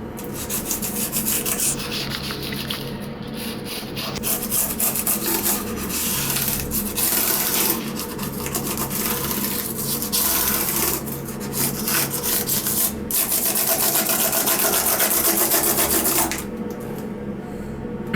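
Continuous scratchy scrubbing and rubbing on a laptop keyboard being cleaned with vodka in a sink, made of many quick strokes; it eases off near the end.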